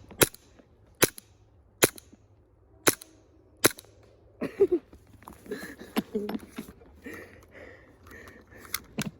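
CO2 blowback airsoft pistol shots: five sharp cracks about a second apart, then a few more scattered shots later, with softer rustling in between.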